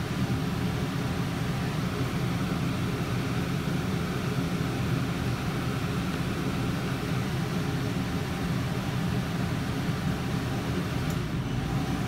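Steady hum and fan rush of a Dometic 15,000 BTU rooftop RV air conditioner just switched on, heard from inside the travel trailer, mixed with a Predator 3500 inverter generator running under the air conditioner's load.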